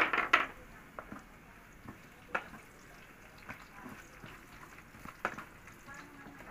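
Wooden spatula stirring and scraping chopped shallots and garlic around a non-stick electric pot, with the light sizzle of frying in oil and scattered knocks of the spatula on the pan. A sharp clatter at the very start is the loudest sound.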